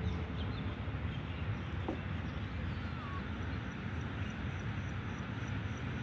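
Steady low outdoor background rumble with a few faint short bird chirps over it.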